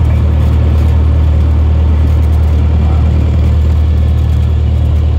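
Cessna 172 Skyhawk SP's four-cylinder Lycoming IO-360 engine and propeller running steadily, heard from inside the cockpit.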